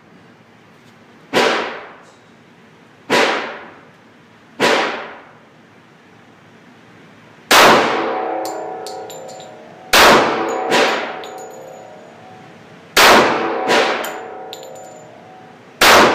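Glock pistol fired one shot at a time in an indoor range, nine shots in all at an uneven pace, some in quick pairs. From about the middle the shots are louder and each leaves a ringing tone, followed by small metallic clicks.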